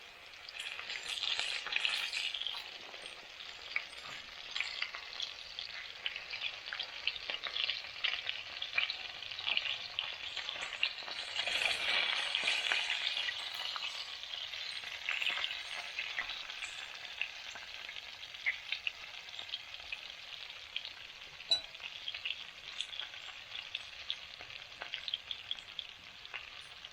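Chicken pieces frying in hot sunflower oil: a dense, steady sizzle full of small crackling pops, louder for a couple of seconds near the start and again about halfway through.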